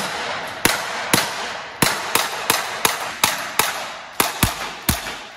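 ASG CZ P-07 CO2-powered blowback airsoft pistol fired in quick semi-automatic succession, about a dozen sharp shots at an uneven two to three a second. Each shot echoes off the walls of an indoor range.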